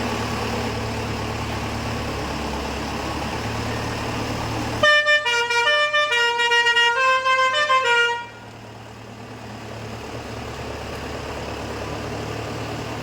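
A bus engine running steadily, then about five seconds in a multi-tone "telolet" bus horn plays a quick tune of stepping notes for about three seconds before the engine runs on more quietly.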